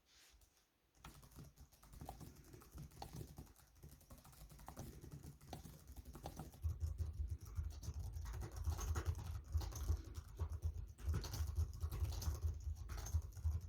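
Keys of a Corsair K83 wireless keyboard being tapped in quick succession, a dense run of clicks starting about a second in and growing louder and heavier about halfway through.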